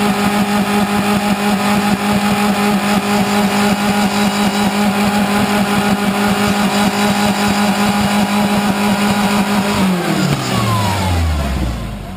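Off-road truck's engine held at high, steady revs during a hill climb, then the revs fall away to a low idle near the end.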